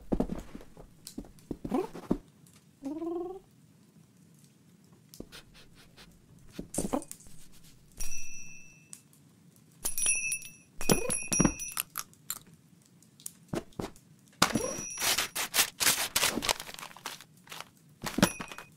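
Cartoon sound effects of a cat at a Christmas tree. A brief cat-like call comes about three seconds in, and a small bell ornament rings a few times around the middle. Near the end come rapid rustling and crunching of wrapping paper as the cat burrows into the presents.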